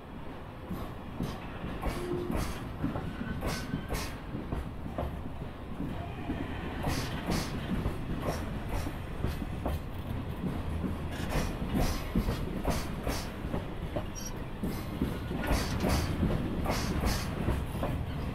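Freight train's container flat wagons rolling past while pulling away from a stop, their wheels clacking over the rail joints again and again over a steady rumble.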